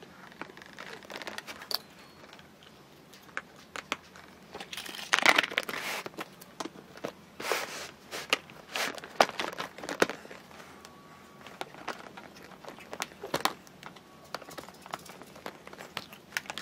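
Plastic pieces of a Mouse Trap board game being handled and fitted together: scattered clicks and light knocks, with louder rustling about five seconds in and again a couple of seconds later.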